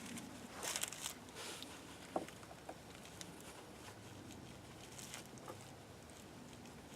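Bark River Mini Bushcrafter knife shaving bark and wood in a few short scraping strokes, the loudest just under a second in, with a sharp click at about two seconds and fainter strokes later.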